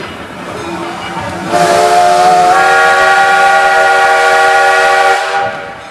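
A steam locomotive's whistle sounds one long blast of about four seconds. It starts with a rush of steam and steps slightly up in pitch about a second in, over the rumble of passenger coaches rolling past.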